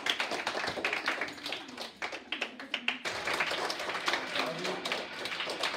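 A classroom of children clapping their hands, a quick, uneven patter of many claps.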